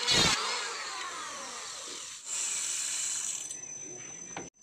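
Handheld electric planer shaving a wooden plank, then its motor winding down in a falling whine once the cut ends. About two seconds in, a steady high whir starts up again.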